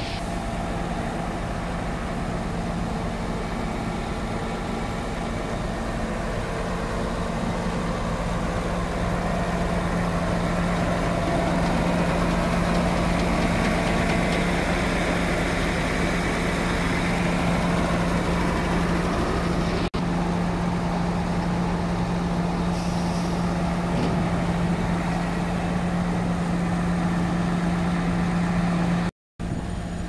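Schwing S 65 SX truck-mounted concrete pump running steadily, its engine giving a constant low hum with no rhythm, broken by a momentary gap near the end.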